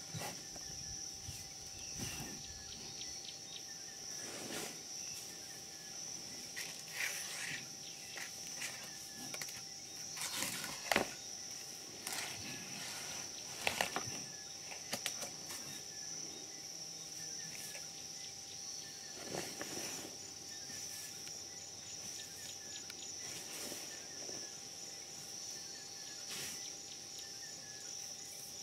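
Steady high-pitched insect chirring, like crickets, throughout, with irregular scuffs and a few sharp knocks from a baby black rhino rooting and playing in sawdust, the loudest knocks about halfway through.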